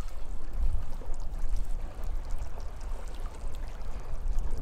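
Outdoor ambient noise: a steady rushing noise with a heavy, fluctuating low rumble.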